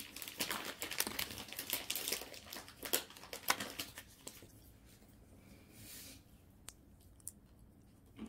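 Thin plastic film crinkling and crackling as it is peeled off a foam tray of tuna sashimi, dense for the first four seconds or so, then quieter with a few single ticks.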